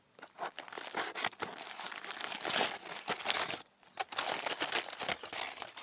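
Aluminium foil dome of a Jiffy Pop popcorn pan crinkling and tearing as it is pulled open by hand, with a short pause about two-thirds of the way through.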